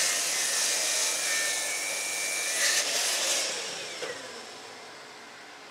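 Bosch sliding mitre saw running and crosscutting a 2-inch-thick maple board. About three and a half seconds in, the motor is released and the blade winds down, fading with a falling whine.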